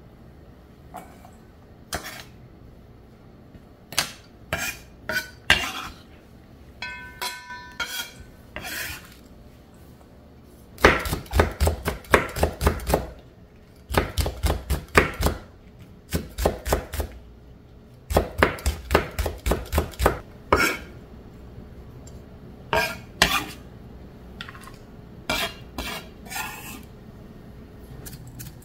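Kitchen utensils knocking and clinking against dishes, with several runs of quick, even knocks at about five a second in the middle, and one brief ringing clink about a quarter of the way in.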